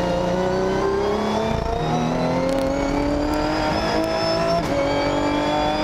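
Ginetta G50 GT4's V6 engine heard from inside the cockpit, accelerating hard with its pitch climbing steadily through each gear. It upshifts about two seconds in and again about four and a half seconds in, the pitch dropping at each shift before rising again.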